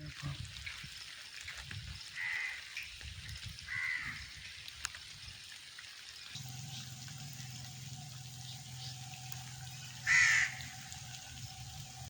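Birds calling: three short, harsh calls, the loudest near the end. A steady low hum starts about six seconds in.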